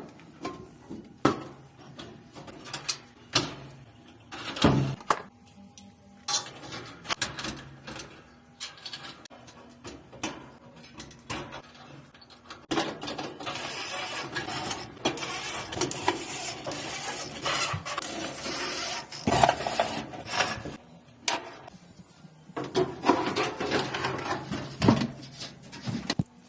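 Irregular clicks, knocks and clatter, with longer stretches of scraping and rattling in the middle and near the end.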